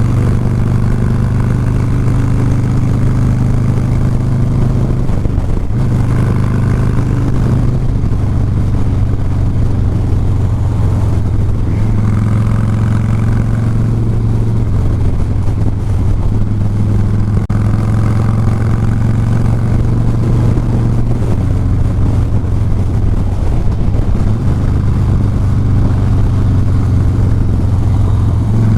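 Harley-Davidson Softail Fat Boy's V-twin engine running while the bike is ridden. Its note steps up and down in pitch several times as the throttle and gears change.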